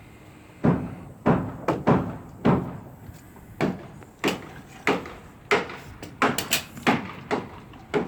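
Hammer blows on wooden roof framing: about fourteen sharp knocks at an uneven pace, one to two a second.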